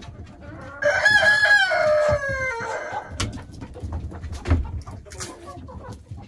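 A rooster crows once, starting about a second in: a long call of about two seconds that drops in pitch at the end. Hens cluck around it, and a few sharp knocks follow.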